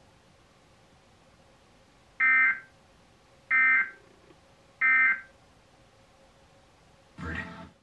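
Emergency Alert System SAME header data bursts: three loud, identical, short screeching bursts of digital tones about 1.3 seconds apart. They open an EAS Required Monthly Test, heard through a television's speaker.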